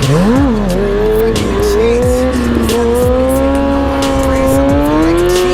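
Sportbike engine revving. Its pitch dips briefly and swings back up in the first second, then is held on the throttle and climbs slowly and steadily.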